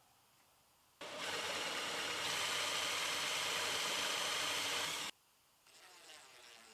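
DeWalt cordless drill boring a cup hole for a concealed cabinet hinge through a drilling jig: a loud, steady whir of motor and cutting bit for about four seconds that stops abruptly. Near the end a cordless drill buzzes briefly, driving a hinge screw.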